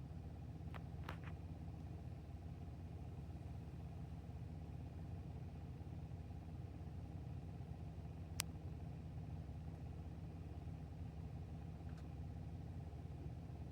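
2017 GMC Acadia All Terrain engine running steadily, probably at idle, with a few scattered clicks: a sharp one about eight seconds in and fainter ones near the start. This is the ticking noise the owner is complaining about.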